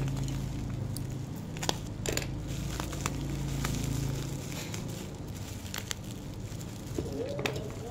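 Bubble wrap and thin plastic wrapping crinkling and crackling as hands handle and peel it, with scattered sharp crackles. A low steady hum runs under the first half.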